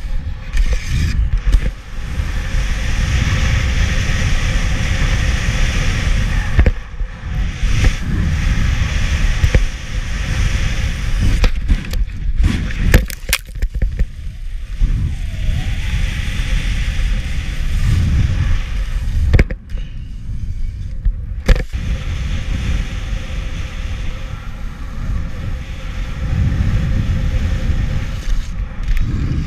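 Skis sliding and scraping over groomed snow, with wind buffeting the action camera's microphone as a heavy rumble. A few sharp clacks cut through, most of them a little before the middle.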